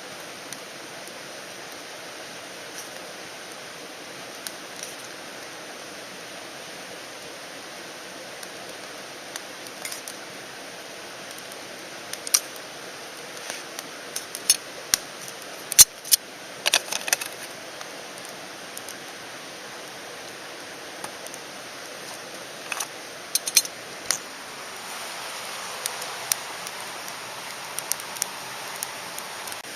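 Scattered metallic clinks and clatters, as of camp cookware or utensils being handled, some ringing briefly, over a steady background rush. The clinks come in clusters around the middle and again near the end.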